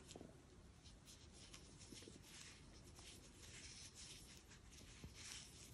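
Near silence with faint, irregular soft scratching of yarn being drawn through stitches with a crochet hook.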